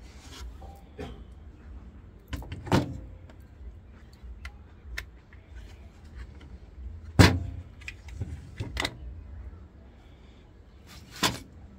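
Scattered clicks and knocks from a washing machine control board being handled, with a sharp knock about seven seconds in the loudest and a few lighter taps around it.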